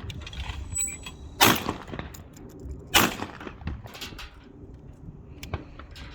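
Two shotgun shots from a Franchi Affinity Elite 3.5 semi-automatic 12-gauge, fired about a second and a half apart as a pair at sporting clays, with fainter clicks and knocks between.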